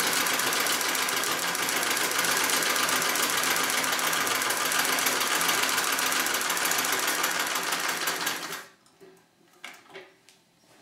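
Singer 66 Red Eye treadle sewing machine running steadily, free-motion quilting through the quilt layers with a fast, even needle rhythm. It stops about eight and a half seconds in, leaving a few faint clicks.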